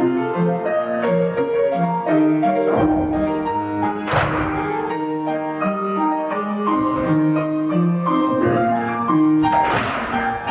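Piano music accompanying a folk-dance barre exercise, playing a steady run of chords with a strong accent about every five and a half seconds.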